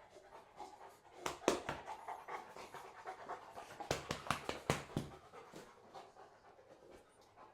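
A dog panting, with several sharp clicks or taps between about one and five seconds in.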